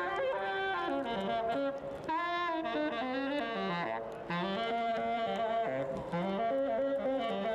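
Jazz music led by saxophone, playing a moving melody over a lower line, with short breaks between phrases about two and four seconds in.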